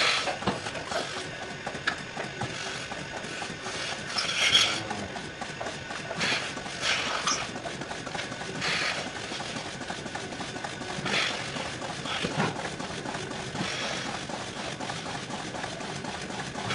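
Dairymaster swing-over milking parlour machinery running: a steady mechanical noise with fast, fine clicking, and short hisses of air every few seconds.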